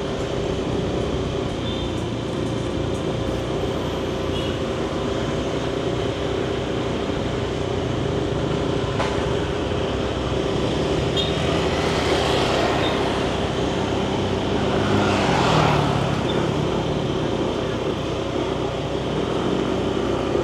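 Motor scooter running steadily on the move, with road and wind noise and the surrounding street traffic; two louder swells of passing traffic come about twelve and fifteen seconds in.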